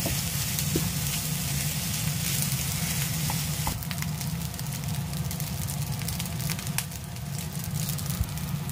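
Fried rice with sausage sizzling in a nonstick frying pan as it is stirred with a plastic spatula, with a few light clicks of the spatula against the pan. A steady low hum runs underneath.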